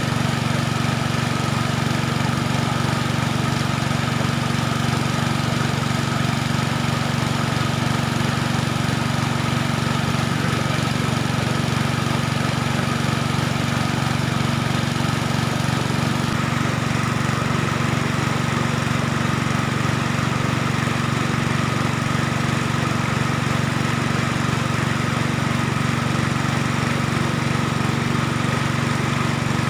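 Small petrol engine driving a gold-dredging suction pump, running steadily at a constant speed.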